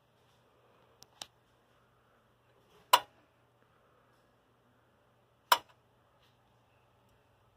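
Two loud, sharp switch clicks about two and a half seconds apart as a UV fluorescent tube fitting is switched off and back on, with two fainter clicks about a second in and a faint low hum underneath.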